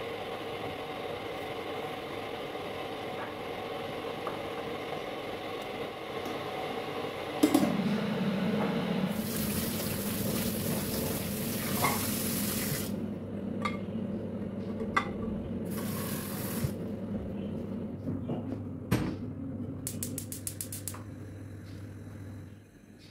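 Kitchen sounds: water running from a tap for a few seconds, with knocks and clinks of dishes over a steady low hum.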